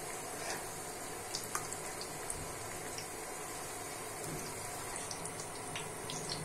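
Cabbage pakora batter deep-frying in a pan of hot oil: a steady sizzle with scattered small pops and crackles.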